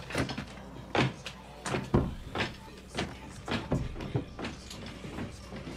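Ceramic coffee mugs carried across a room and set down on a table, heard as a run of irregular knocks and clunks with soft steps between them.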